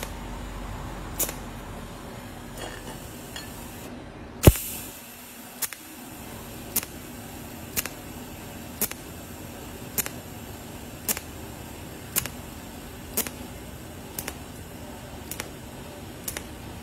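TIG welding on a stainless steel exhaust tip: a sharp click about once a second over a steady hum, with one louder knock about four and a half seconds in.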